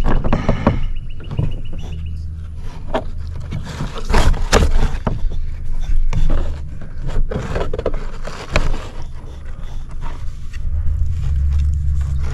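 Irregular knocks, bumps and scrapes on a plastic sit-on-top kayak hull over a low rumble.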